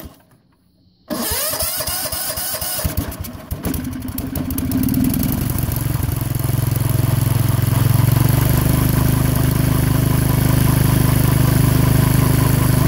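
A 16 hp Tecumseh OH160 single-cylinder engine on a Sears Suburban lawn tractor being cranked by its starter. The cranking stops for about a second, starts again, and the engine catches about three seconds in. It picks up speed and settles into steady running.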